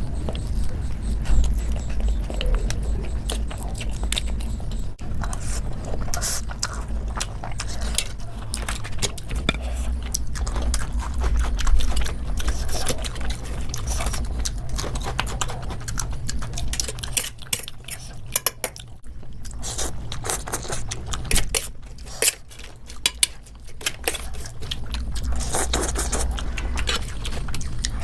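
Close-miked eating: chewing and biting, with many short clicks and clinks of cutlery and dishes.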